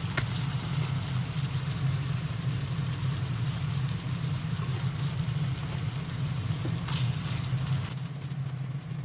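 Beef-and-pork mince sizzling as it is stir-fried in a frying pan, over a steady low hum, with a few light taps.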